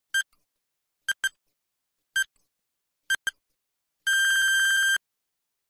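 Electronic countdown-timer sound effect: short beeps about once a second, some in quick pairs, ending in a long steady beep about four seconds in.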